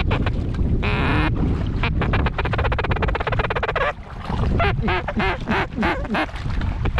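Ducks quacking with rapid chatter, with repeated calls in the second half, over a low wind rumble on the microphone.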